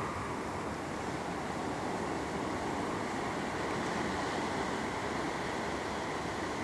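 Steady sea-shore noise: small waves washing onto a sandy beach, mixed with wind on the microphone.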